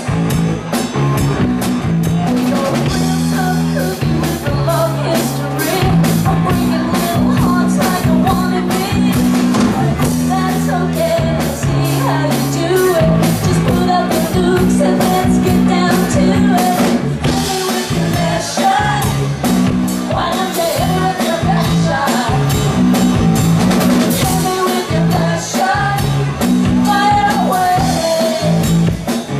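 Live rock band playing: electric guitars and a drum kit, with a woman singing lead into a microphone.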